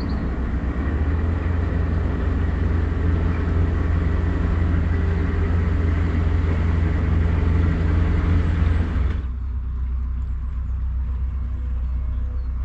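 Narrowboat's diesel engine running with a steady low rumble. About nine seconds in, it drops abruptly to a quieter, duller hum.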